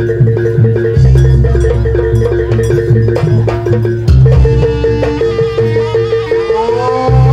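Javanese gamelan accompanying a buto dance: metallophones struck in quick, even notes over deep drum strokes. Near the end a note slides upward and holds.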